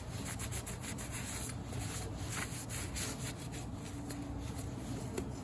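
Cloth rag rubbing over a furnace inducer motor part, wiping the dust off in quick, irregular scrubbing strokes.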